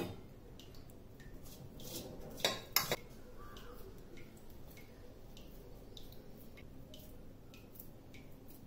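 Kitchen utensils clinking against a vessel: a sharp clink at the start and two louder clinks about two and a half to three seconds in, then faint light ticks and taps.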